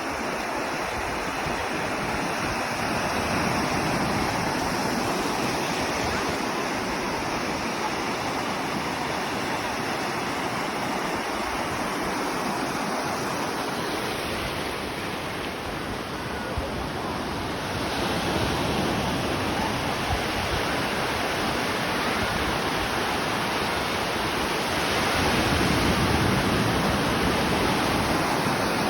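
Ocean surf breaking on a sandy beach, a steady wash of waves that swells a little louder now and then, with some wind on the microphone.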